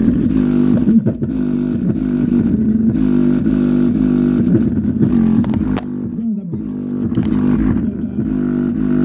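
Bass-heavy music played loud through a bare 5-inch subwoofer driver mounted on a Logitech Z213 subwoofer enclosure, the cone pumping hard. The bass briefly dips with a falling glide about six seconds in.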